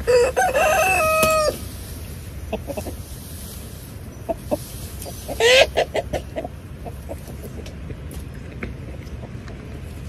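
A rooster crows once, a call of about a second and a half that ends on a held note. About five seconds later comes a shorter, rising squawk.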